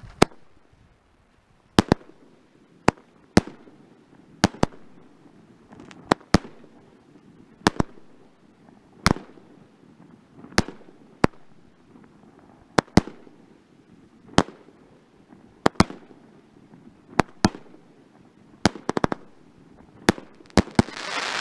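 16-shot consumer firework cake firing shot after shot: a series of sharp bangs, often two close together, about one every second and a half.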